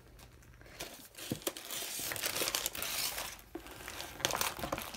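Plastic and paper packaging crinkling as items are handled and lifted out of a cardboard box, starting about a second in and easing off later.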